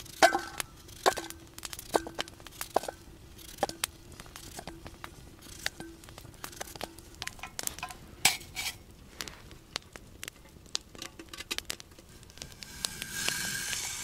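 Metal camp cookware clinking and knocking as pots and mugs are handled at a campfire: scattered sharp clicks, some briefly ringing. A hissing rush swells near the end.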